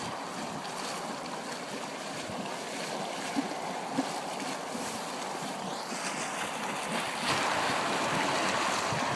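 Steady hissing and bubbling of a geothermal hot-spring field, getting louder about six seconds in, with two light knocks in the middle.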